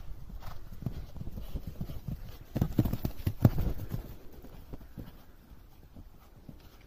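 Hoofbeats of a grey horse cantering on a sand arena surface. They are loudest as it passes close a little under three seconds in, then grow fainter as it heads away to the jump.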